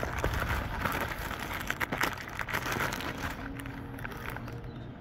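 A plastic postal satchel being torn open and crinkled by hand, with a run of crackling rustles that die down after about three seconds.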